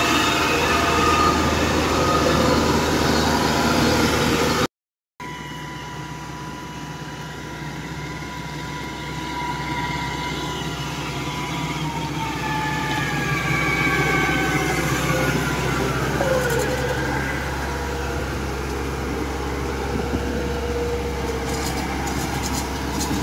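Kubota crawler combine harvesters running as they travel on their tracks, a steady engine hum loud and close for the first few seconds. After a sudden break about five seconds in, the sound is quieter, with the engine pitch sliding down around the middle as a harvester moves off and turns into the field.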